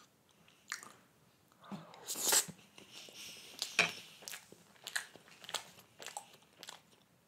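A person taking a bite of soft banana pancake with whipped cream and chewing it close to the microphone, with a louder bite about two seconds in, then short wet mouth clicks about twice a second.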